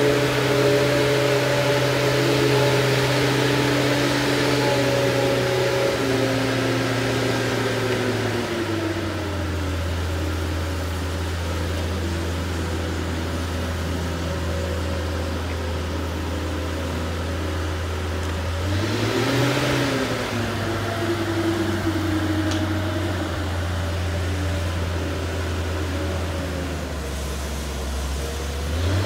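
A boat travel lift's engine running steadily as the lift drives across the yard with a boat hanging in its slings. Its pitch drops about a third of the way in, rises briefly about two-thirds through, and rises again at the very end.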